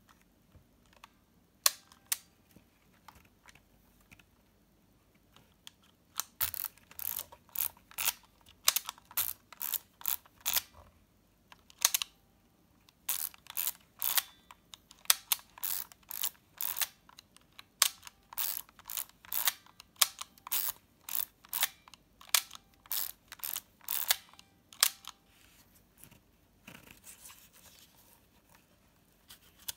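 LOMO LC-A compact 35mm film camera being worked by hand: runs of sharp mechanical clicks, the film-advance thumbwheel ratcheting and the shutter clicking, repeated many times over about twenty seconds, with a couple of single clicks near the start.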